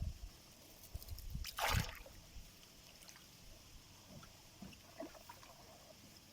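Water sloshing and splashing around a small boat, with one louder splash about a second and a half in and a few soft knocks.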